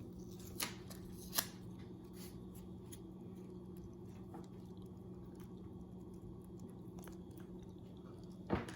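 Sticky tape being handled and pressed onto a popsicle stick and paper clip: two sharp crackling clicks about half a second and a second and a half in, then faint rustling over a steady low hum.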